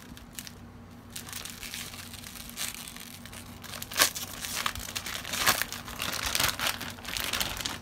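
Clear plastic packaging bag crinkling and crackling as it is cut open and pulled apart by hand, in irregular crackles with a sharp loud one about four seconds in.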